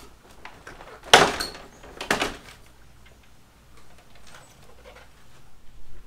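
Plastic front cover of a Mitsubishi Mr. Slim split air conditioner's indoor unit being pulled off: two loud plastic clacks about one and two seconds in as it comes free, then fainter knocks as it is handled.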